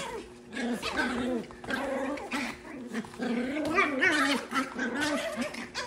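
Pomsky puppies and their mother play-fighting, giving a near-continuous string of small growls, yips and whines: play growling, not real aggression.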